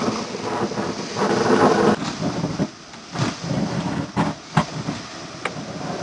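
Loose-fill cellulose insulation blowing out of a corrugated hose: a loud rushing noise with irregular knocks as the material passes through. The rushing eases off about two and a half seconds in, leaving quieter air noise and sharp separate knocks.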